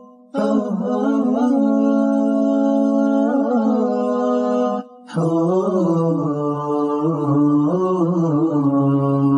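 Background music: a voice holding long, slightly wavering notes in drawn-out phrases, with a short break about five seconds in.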